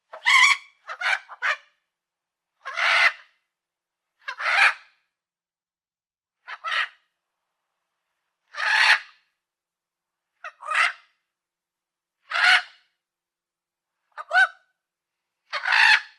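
A parrot calling in a series of short, raspy squawks, each under half a second, repeated about every one and a half to two seconds, with three quick ones together at the start.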